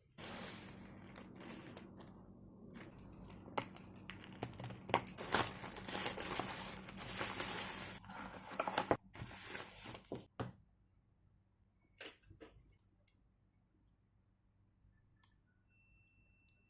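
Crinkling and rustling from something being handled, with many small sharp clicks and crackles, for about ten seconds. It stops suddenly, leaving a few faint clicks.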